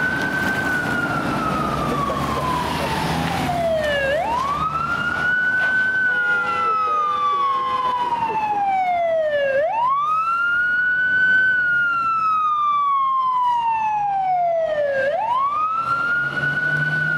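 Fire engine's wail siren on an emergency (code 3) run: the tone rises quickly, then glides slowly down, repeating about every five and a half seconds. A low engine rumble runs under it.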